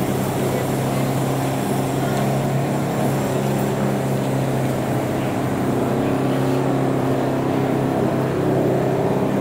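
A motor running steadily, a loud low hum that holds one constant pitch.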